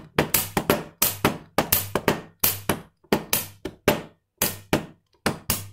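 A hand-percussion rhythm played on a glass-topped table: a flat hand slapping the glass for the low note and a plastic ballpoint pen tapping for the high note, a steady pattern of sharp knocks at about four a second with some quick double strokes.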